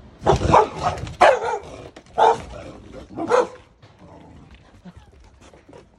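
A large dog barking four times, about a second apart, then falling quiet; alarm barks at an unfamiliar object that has scared it.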